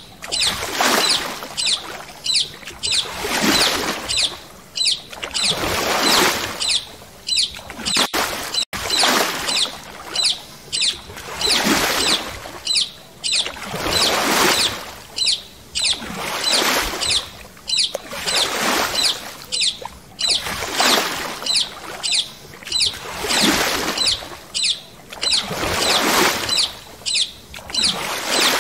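Paddle strokes swishing through the water from a paddle board, about one a second, every other stroke louder, with a short high chirp recurring among them.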